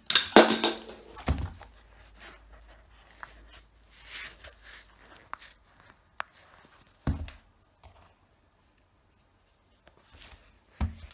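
Handling noise as a sneaker is picked up and turned over in the hand: rustling and scraping, with dull thumps about a second in, about seven seconds in and near the end.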